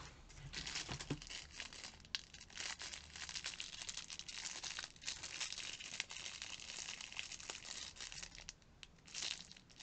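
Clear plastic packaging crinkling and rustling in irregular bursts as it is handled, easing off near the end.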